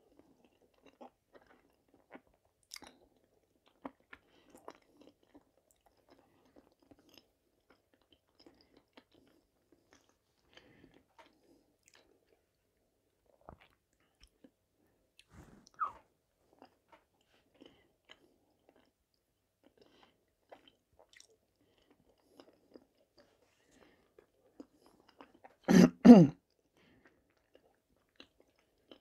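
Quiet chewing of soft boiled vareniki (potato dumplings) close to a clip-on microphone, with faint scattered clicks of a fork on the plate. A brief loud double burst comes near the end.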